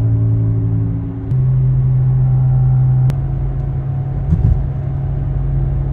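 Car engine running steadily while driving, a low hum whose pitch steps up slightly about a second in and settles lower again about three seconds in.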